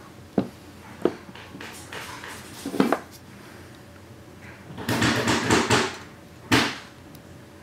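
Hand crimping tool being handled and worked: a few separate sharp metal clicks and knocks, then a rattling run of clicks about five seconds in and another sharp click just after.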